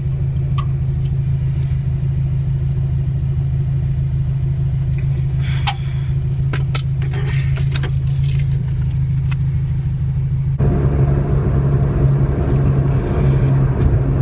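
Car running on the road, heard from inside the cabin: a steady low engine and road hum with a few light clicks and rattles. About ten seconds in the noise turns louder and rougher.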